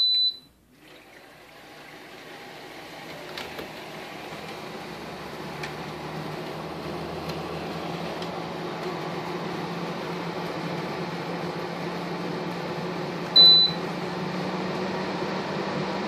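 Sunpentown WA-1211S window air conditioner beeping as it is switched on, then its fan spinning up over several seconds into a steady rush of air with a low hum. A second short beep comes about 13 seconds in, from a press on its control panel.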